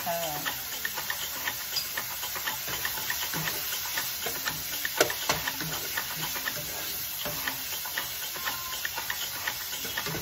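Ground pork and onions sizzling in a nonstick frying pan as a spatula stirs and scrapes through them, with frequent short clicks of the spatula against the pan and one louder knock about five seconds in.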